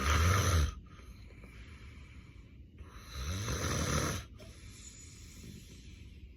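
A man snoring loudly in his sleep: two snores about three seconds apart, each followed by quieter breathing. The snorer has severe sleep apnea.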